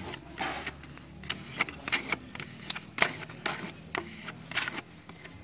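Flat body-filler spreader scraping across freshly applied filler on a car's sheet-metal bumper corner, in a run of short, irregular strokes as the filler is smoothed.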